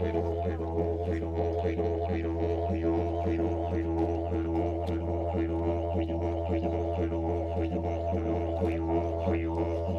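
Didgeridoo music: one unbroken low drone with overtones that pulse in a continuous rhythm.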